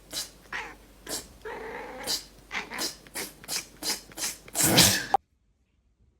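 A cat hissing in short harsh bursts, about two a second and coming faster, with a low growl between them about a second and a half in. It ends in a longer, louder hiss that cuts off suddenly.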